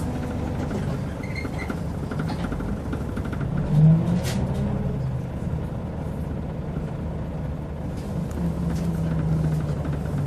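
Scania L94UB bus's nine-litre six-cylinder diesel engine running on the move with a steady low rumble. Its note strengthens under load about four seconds in and again near the end, with a few short clicks or rattles.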